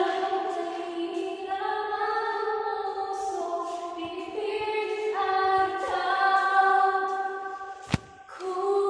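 Music with a female singing voice: long held notes that step from one pitch to the next. A sharp click about eight seconds in, followed by a brief dip before the singing resumes.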